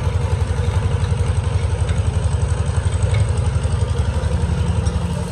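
Workshop machinery running: a steady low throb with fast, even pulses.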